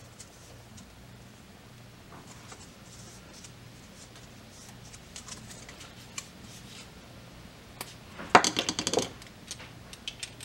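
Teflon tape being wrapped by hand around the threads of a brass pressure-washer fitting: faint rustling and handling sounds, then a quick cluster of sharp clicks and clinks a little past the middle, the loudest thing heard.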